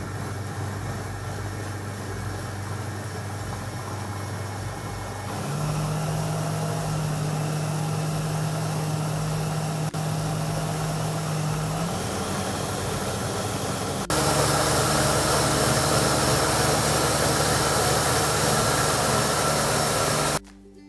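Blender motor of a Monsieur Cuisine Connect kitchen robot running steadily while puréeing soup in its steel jug. It steps up in speed twice, each time higher-pitched and louder, as it is turned up from speed 5 towards speed 10, and it cuts off near the end.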